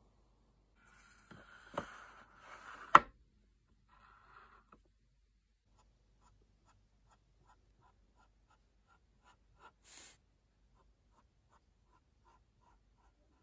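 A Posca paint marker drawing on a silicone phone case, heard as a string of short faint scratchy strokes in quick succession. Before that comes a few seconds of handling with two sharp clicks, the second and loudest about three seconds in.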